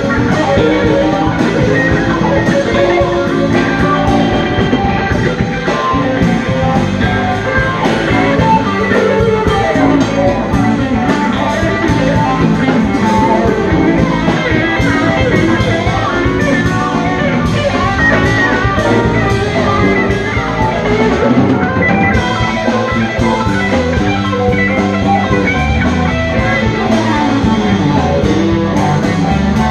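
Live funk jam played by a small band: electric guitar lines over keyboards, bass and a drum kit keeping a steady groove.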